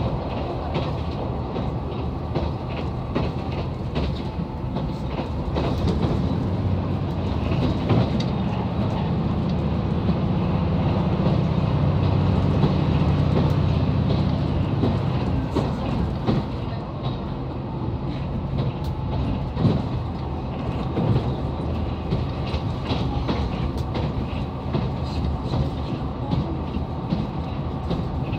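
KiHa 187 series diesel railcar running at speed, heard from inside: the diesel engine drones under repeated rhythmic clacks of the wheels over rail joints. The running noise swells louder for a few seconds around the middle.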